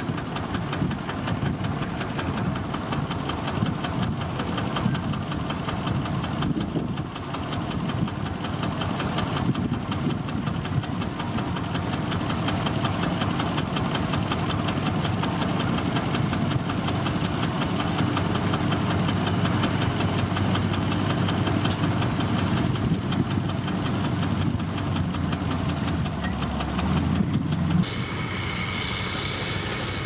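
Motor grader's diesel engine running steadily under load while its blade pushes and spreads gravel. Near the end the sound changes abruptly to a different engine sound.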